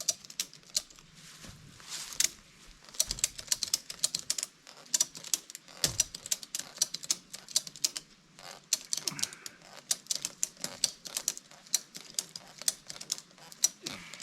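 Ratchet strap being worked, its ratchet clicking in quick runs of sharp clicks, with a few duller knocks between.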